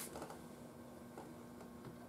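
A few faint, sharp clicks and taps from hand work on a tube radio chassis while a capacitor lead is fitted, over a faint steady hum.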